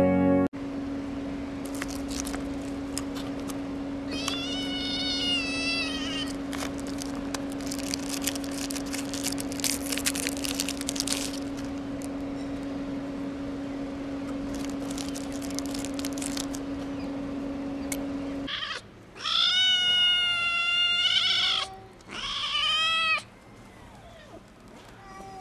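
Tiny kitten meowing: one meow about four seconds in, then two long, loud meows near the end. Under the first part run a steady hum and spells of clicking and crackling; the hum cuts off just before the loud meows.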